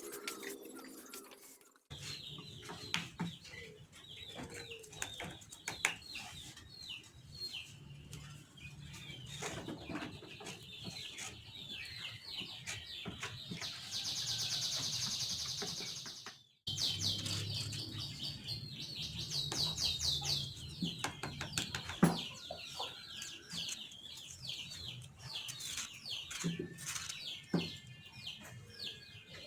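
Small birds chirping repeatedly in quick, falling high notes, with scattered light clicks and knocks underneath.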